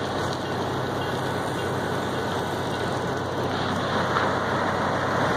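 Diesel-electric locomotive's engine running with a steady low hum as the train rolls in, a little louder about four seconds in as the locomotive passes close.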